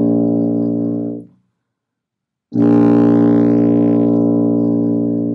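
Tuba sounding a long held low B flat that stops about a second in; after a pause of just over a second for a breath, the same low note starts again and is held.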